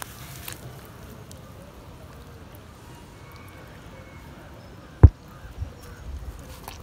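Quiet outdoor background with faint handling of wet soil by hand, and one sharp, low thump about five seconds in.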